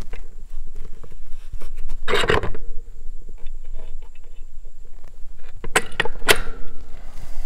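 Small metal clicks and scrapes of hardware being fitted by hand as a gate opener's arm is seated on its steel post bracket with a bushing and pin. A louder scrape about two seconds in, and two sharp clicks near the end.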